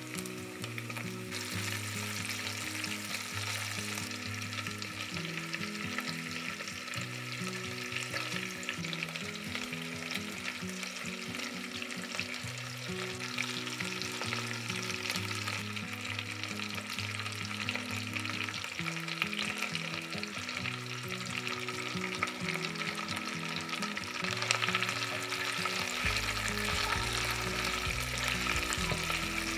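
Diced pancetta and bacon sizzling and crackling in hot oil in a nonstick frying pan, with pieces of raw Italian sausage meat frying along with it.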